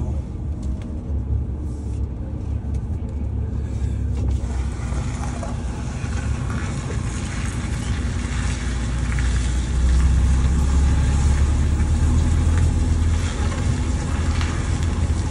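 Lorry's diesel engine running with a steady low drone as the truck drives, heard from inside the cab; it gets louder about ten seconds in.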